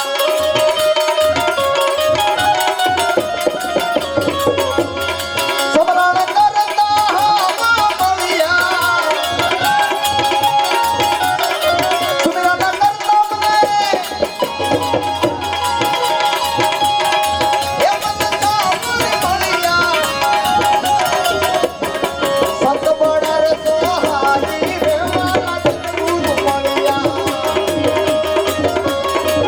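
Gujarati devotional folk music: tabla playing a fast, steady rhythm under a wandering melody line, with no words sung.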